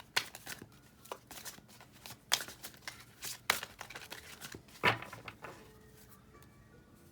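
A deck of tarot cards being shuffled by hand: a quick, irregular run of papery slaps and riffles that stops about five and a half seconds in.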